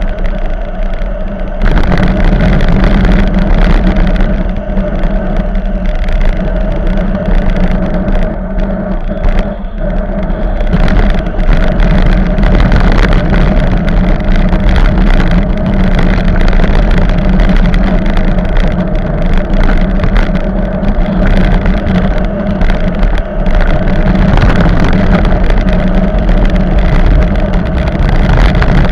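Steady loud rush of wind and road noise picked up by a camera on a moving bicycle, with car traffic passing alongside. It grows louder about two seconds in.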